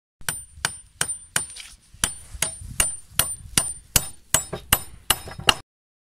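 Hatchet used as a hammer, its poll driving a nail into a wooden board: about fifteen sharp strikes at roughly three a second, each with a brief high metallic ring. The strikes stop shortly before the end.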